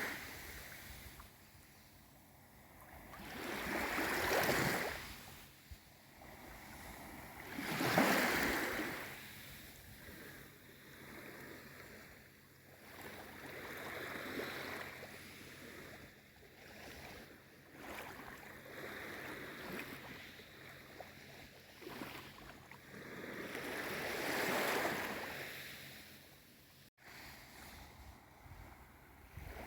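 Small waves of a calm sea washing in and drawing back, the surf noise swelling and fading every few seconds, with three stronger swells among gentler ones. The sound breaks off for an instant near the end.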